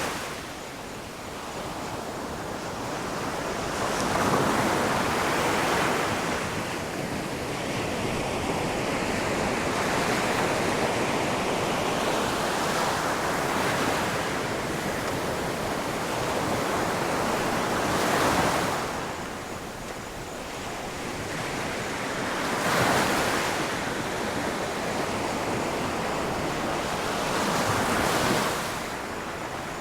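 Ocean surf breaking on a shore: a steady wash of waves that swells into a louder crash every several seconds, four times in all.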